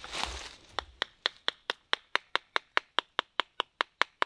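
A knife tapped rapidly into the end of a maple sapling to split a slit in it: steady sharp taps with a light metallic ring, about five a second, starting about a second in after a brief rustle.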